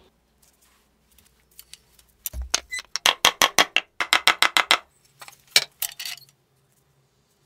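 Two quick runs of sharp taps, about eight a second, with a few scattered clicks after them.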